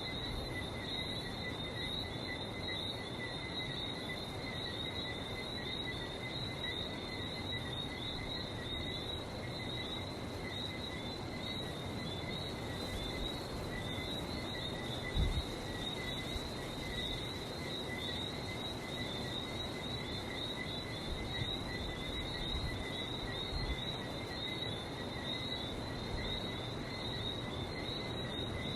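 Night chorus of Lesser Antillean whistling frogs, many high chirping whistles repeating without pause, over a steady low rush of background noise. A single brief low thump sounds about halfway through.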